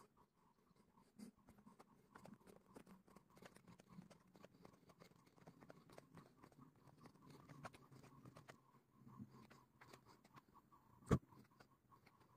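Near silence, with faint irregular footsteps on a dirt trail and stone steps, and one sharp click about eleven seconds in.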